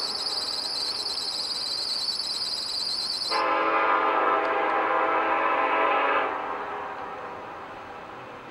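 Canadian National locomotive's air horn sounding one long blast of several tones at once, starting about three seconds in and lasting about three seconds, then trailing away. Before it, a high steady hiss.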